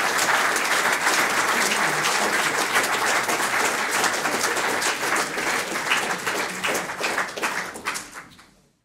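Audience applauding, a dense spread of hand claps that thins to a few separate claps and fades away near the end.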